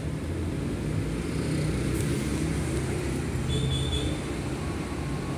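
Steady low rumble of background noise, with a single click about two seconds in and a few faint high tones in the second half.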